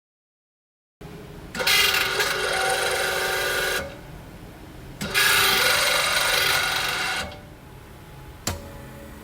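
Radial drilling machine running in two bursts of about two seconds each, with a whining motor and gear noise over a low hum, then a single sharp click near the end.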